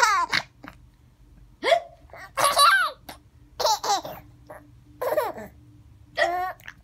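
A woman hiccupping and a baby laughing at the hiccups: several short, separate bursts about a second apart.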